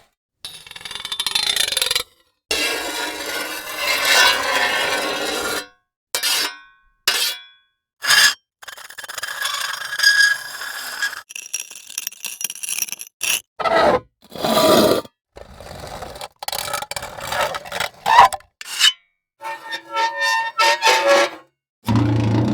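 A string of short, separate foley sound effects played one after another, with brief silences between them. Most are noisy scrapes and rubs, with a few short sharp hits.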